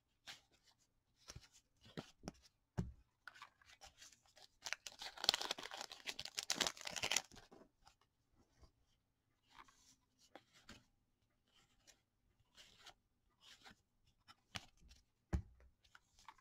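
O-Pee-Chee cardboard hockey cards being flipped by hand from one stack to another, each card sliding and flicking against the next in quiet rustles, with a denser run of rapid sliding about five seconds in that lasts some three seconds, and a couple of soft knocks as the stack is squared.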